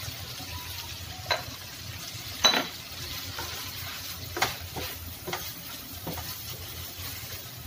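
Prawns and cockles frying in soy and oyster sauce in a non-stick frying pan, sizzling steadily while a wooden spatula stirs and scrapes them. Several sharp knocks of the utensils on the pan cut through, the loudest about two and a half seconds in.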